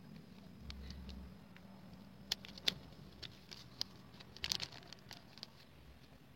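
Faint handling sounds of packing small crocheted items into OPP plastic bags: scattered light clicks and crinkles of thin plastic, a few sharper ones about two and a half and four and a half seconds in.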